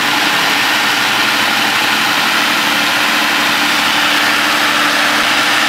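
Food processor motor running steadily at speed, puréeing cucumber, avocado and Greek yogurt into a smooth soup; a loud, even whir over a steady motor hum.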